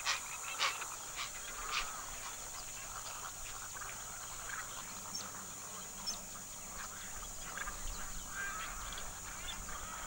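Magpie geese and other waterbirds giving scattered short calls and honks, over a faint steady high hiss.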